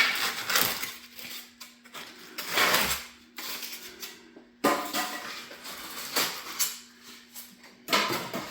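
Styrofoam packing and rack panels being handled and pulled from a shipping box: several irregular bursts of scraping, rustling and knocking. A faint steady hum from an exhaust fan runs underneath.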